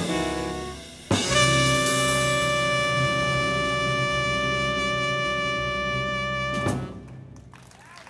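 Jazz quintet of trumpet, saxophone, hollow-body guitar, double bass and drum kit ending a tune: after a last quick phrase the band plays a long final chord, held steady for about five seconds, and cuts it off together with a sharp closing hit near the end.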